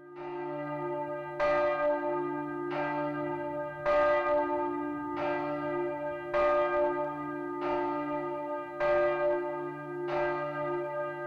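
Church bells ringing, with a fresh strike about every second and a quarter and each note ringing on under the next, over a steady low hum.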